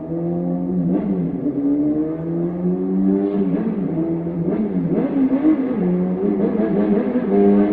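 Honda Jade 250's inline-four engine revving through a 4-2-1 aftermarket exhaust, its pitch rising and falling several times.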